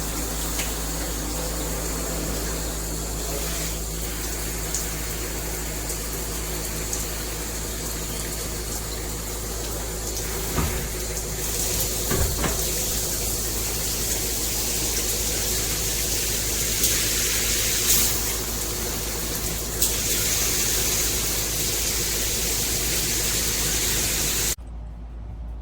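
Water spraying steadily from a 2-in-1 handheld and rain shower head, with a few light knocks, stopping abruptly about a second before the end.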